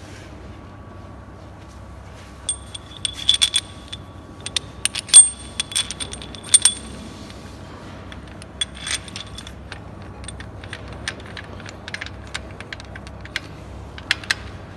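Small metal parts and tools clinking and tapping during hand assembly. A cluster of ringing metallic clinks comes between about two and seven seconds in, followed by lighter scattered taps.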